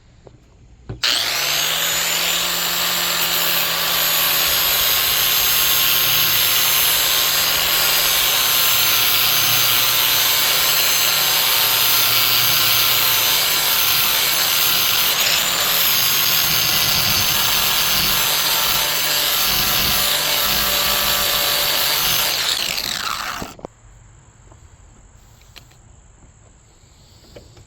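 Angle grinder with a 40-grit flap disc grinding a steel mower blade's cutting edge: it starts about a second in, grinds steadily for about twenty seconds, then is switched off and winds down with a falling whine.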